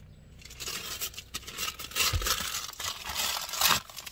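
Christmas wrapping paper being torn and crumpled by hand as a gift is unwrapped. The rustling starts about half a second in, with the loudest rips about two seconds in and again shortly before the end.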